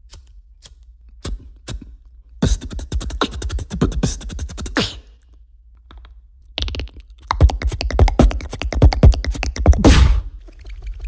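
Mouth-made beatbox sound effects: a few scattered sharp clicks, then two runs of rapid, dense clicking and rattling, each a few seconds long, with a short pause between them. The second run is the loudest near its end.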